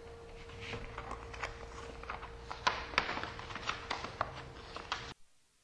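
Paper rustling and tapping as a manila folder is opened and a sheet is pulled out, over a faint steady hum. The sound cuts off abruptly to silence about five seconds in.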